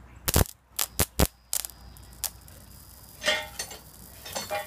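Sharp electrical arcing snaps as a steel strip makes and breaks contact on the electrodes of a homemade high-current transformer, an arc-welder transformer rewound with railway cable. About six separate cracks come in the first two and a half seconds, then two short crackling bursts near the end.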